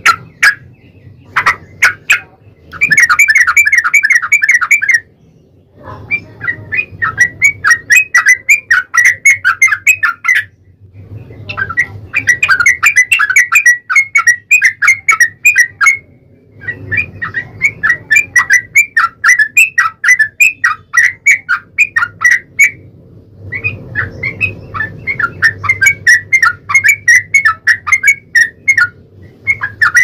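Yellow-vented bulbul (trucukan) singing its rapid 'ropel' song: long runs of quick repeated notes, about six a second, each run lasting several seconds with short pauses between.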